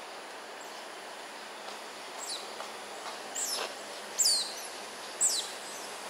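Smooth-coated otters giving a series of high, sharply falling chirps, beginning about two seconds in with the loudest about four seconds in, over a steady outdoor hiss.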